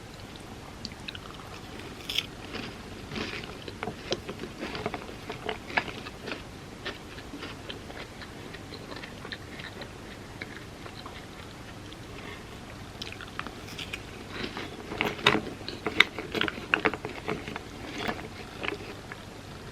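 Close-up biting and chewing of crisp hazelnut-cream-filled wafer pieces, a dense run of crackly crunches. The crunching comes in two spells with a lull between them, louder in the second.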